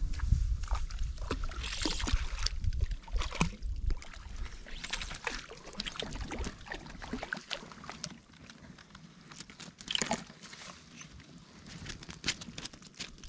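Water splashing and sloshing in irregular bursts: a hooked brook trout thrashing at the surface as it is played in, and a dog wading through the shallows.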